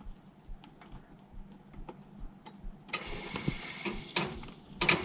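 Hot water boiler starting up: a low steady hum with light, irregular ticking. About three seconds in a steady hiss sets in, with a few louder clicks near the end.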